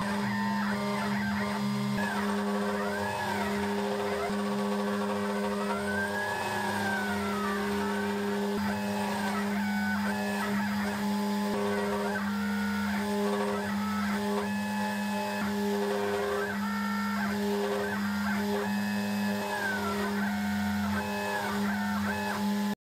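CNC router milling a pocket in aluminium with a single-flute 1/8-inch end mill: the spindle hums steadily at 12,000 rpm, under whining tones that rise and fall in pitch as the machine follows its curved adaptive toolpath. The sound stops abruptly at the end.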